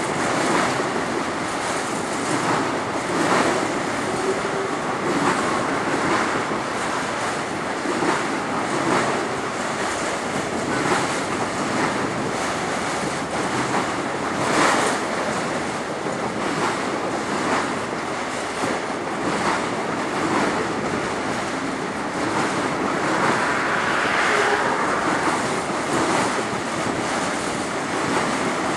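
Freight train of autorack cars rolling past: a steady rumble and rush of steel wheels on rail, with a clack about once a second. Wind buffets the microphone throughout.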